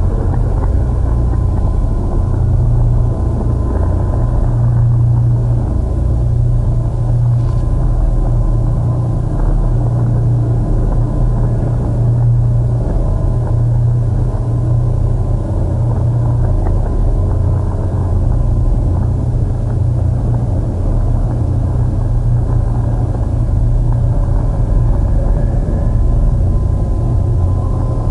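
A steady, dense low rumbling drone of heavily processed, effects-treated sound, with faint held tones above it and no clear beat.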